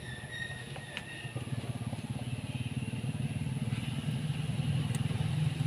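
An engine running nearby with a fast, even pulse, growing steadily louder from about a second and a half in, like a motorcycle approaching or idling close by.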